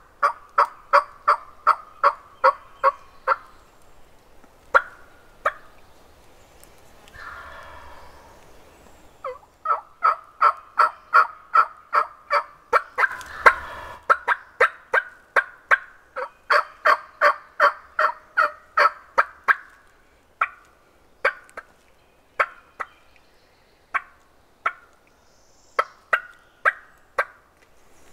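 Long runs of turkey yelps, about three sharp notes a second, in two main series. Between them, about seven seconds in, comes a rough rattling gobble, and single notes are scattered near the end.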